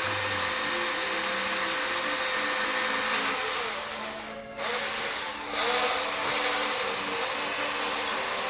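A power tool's motor runs with a steady whirring, slows briefly around the middle and then speeds back up, over background music.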